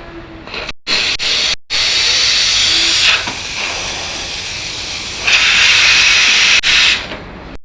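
Espresso machine's steam wand hissing, loud at first, quieter for a couple of seconds, then loud again before cutting off near the end.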